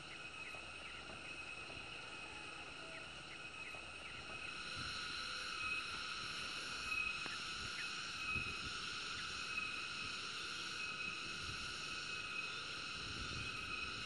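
Steady shrill chorus of insects, several high pitches held together, which grows louder about a third of the way in. Occasional low wind bumps on the microphone.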